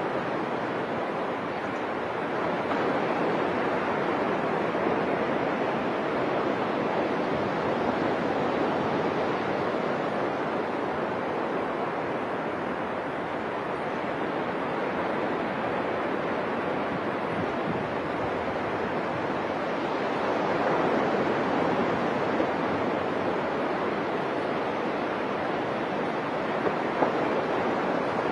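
Ocean surf washing onto a sandy beach: a steady rushing noise that slowly swells and eases.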